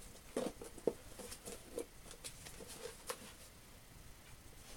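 Faint handling sounds as a measuring instrument is fitted into its case: a scatter of light clicks, taps and rustles.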